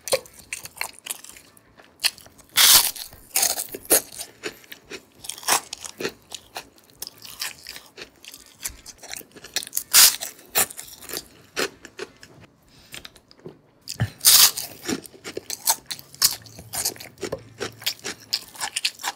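Close-miked eating: a person chewing and biting crisp food, with irregular sharp crunches and several louder bites standing out.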